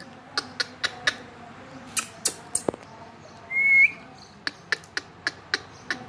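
Runs of sharp clicks, about four a second, with one short whistle a little past the middle that rises and then holds level.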